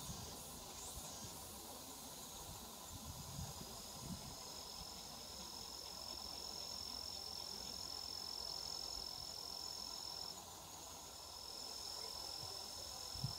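An insect singing: a faint, steady high-pitched buzz that starts about three seconds in, stops briefly near ten seconds and resumes, over quiet open-air background noise.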